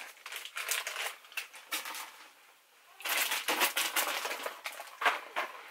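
Candy packaging crinkling and rustling as wrappers and bags are handled, with a short lull about two and a half seconds in before the crinkling picks up again.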